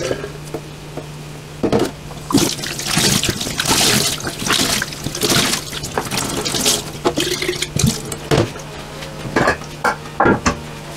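Water splashing in a stainless steel sink as a glass bottle is washed by hand with a cloth, with a few sharp knocks near the end as the glass is set down against the steel.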